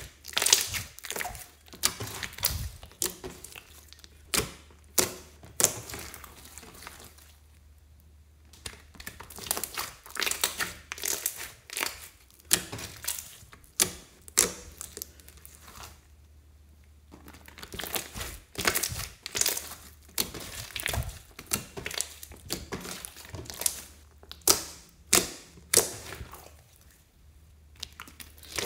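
Hands squeezing, pressing and stretching a large mass of clear slime mixed with glitter and sequins: sticky squelches and sharp little pops and crackles of trapped air, coming in clusters with a few short pauses.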